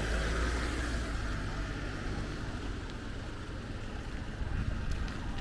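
Low rumble of a vehicle engine fading away over the first second, leaving a steady outdoor background noise.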